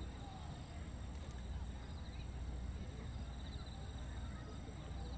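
Low murmur of a waiting outdoor crowd, with scattered faint voices over a steady low rumble, and faint high chirps repeating at an even pace.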